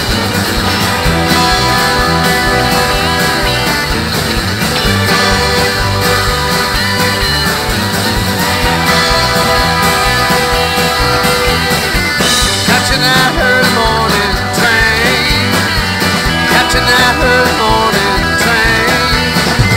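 Live country band playing a song's opening with acoustic guitar, fiddle, accordion, electric guitar and drums together. A wavering melodic lead line comes in about halfway through.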